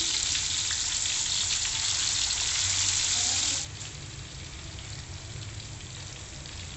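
Spiced chicken pieces deep-frying in hot oil in a wok, a steady sizzle. It becomes suddenly quieter about three and a half seconds in.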